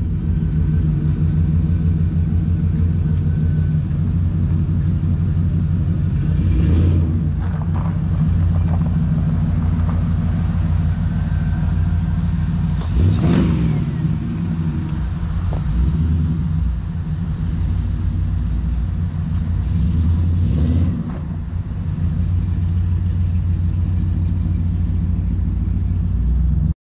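Vehicle engine running at a steady speed, a deep continuous drone, with a few brief knocks about a third, halfway and three quarters of the way through.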